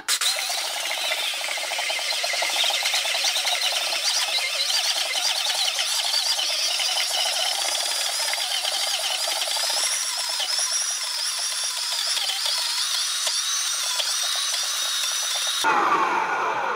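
Vitamix 5200 blender motor running at high speed, grinding cashews into nut butter in its plastic container while the tamper is worked in. The audio is sped up fourfold, so the motor sounds high and buzzing. Near the end it is switched off and its pitch falls as it spins down.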